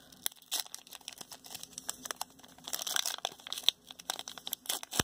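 Panini Prizm basketball card pack's glossy wrapper crinkling and tearing as it is pulled open at the crimped seam, with a run of irregular sharp crackles that thicken about three seconds in and again near the end.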